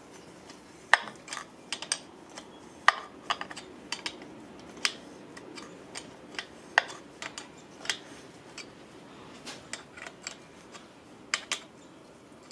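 Irregular sharp metallic clicks of small wrenches on the adjuster of an S&S Quickee adjustable pushrod as it is turned out turn by turn, the wrench taken off and refitted on the flats each few seconds.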